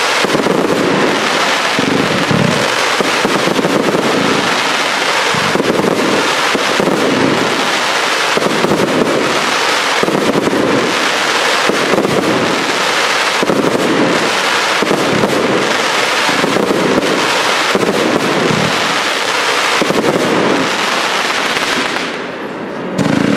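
Fireworks cakes (multi-shot batteries) fire a continuous barrage of shots and bursts, about one a second, over steady crackling. The barrage drops off briefly near the end, then resumes.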